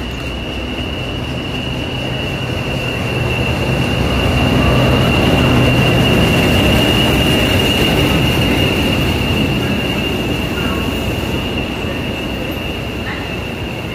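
Class 40 diesel-electric locomotive D213 running slowly past at close range, its English Electric engine giving a steady high whistle over a low rumble, loudest as the locomotive passes about five seconds in. The passenger coaches then roll by.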